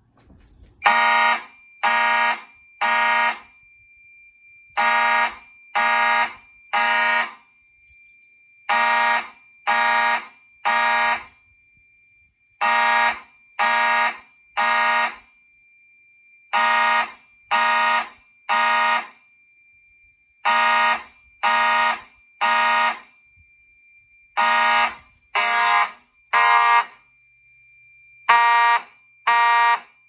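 Simplex fire alarm horns sounding the temporal code-3 evacuation pattern: three loud blasts about a second apart, then a pause, repeating every four seconds. The pattern starts about a second in and is set off by a pulled manual pull station on a Potter PFC-4064 conventional fire panel. A faint steady high tone runs underneath.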